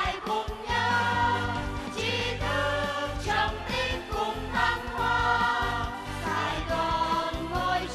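A song: a group of voices singing together over instrumental backing with a steady bass.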